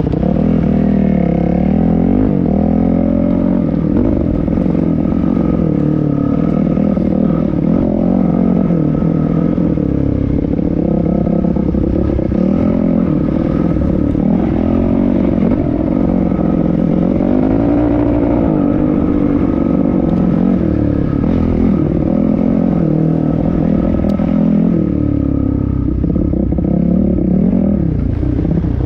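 Dirt bike engine running under constant throttle changes, its pitch rising and falling again and again as the bike is ridden along a rough trail.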